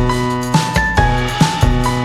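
Upbeat background music with a steady beat and bright melodic notes.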